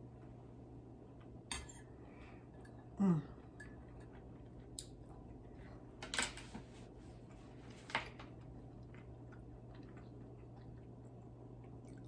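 A fork and plate clinking lightly a few times as someone finishes eating, with a short falling vocal sound about three seconds in.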